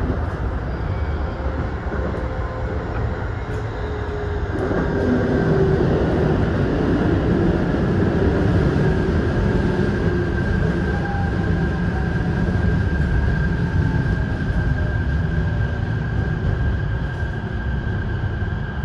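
Keisei electric commuter train running and slowing into a station, heard from inside the driver's cab: a steady rumble of wheels on rails with a steady whine over it.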